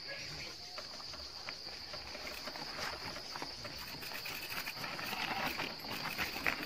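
Steady high-pitched insect drone from the trailside vegetation, with scattered clicks and rattles from mountain bikes rolling over a rough dirt trail.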